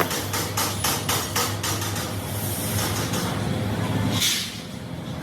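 Fast, evenly spaced metal strikes, about six a second, typical of hammering on a part; they stop about two seconds in. A steady low hum runs underneath, and there is a short hiss near the end.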